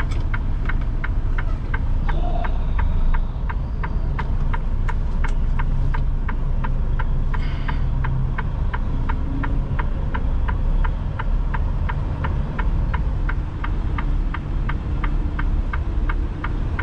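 Diesel engine of a 2021 Freightliner Cascadia semi-truck running at low speed while the truck is backed into a spot, heard from inside the cab. Over it, a steady rapid ticking from the cab, about two and a half ticks a second.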